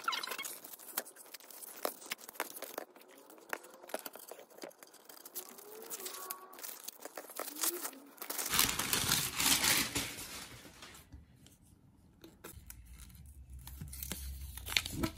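Paper posters and their paper wrapping being handled, with rustling, crinkling and tearing-like scraping. There is a louder, denser stretch of rustling about two-thirds of the way through, as the wrapping comes off the roll.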